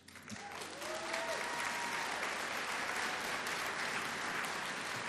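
Audience applauding: the clapping builds quickly just after the start and then holds steady, with a single whoop rising over it about a second in.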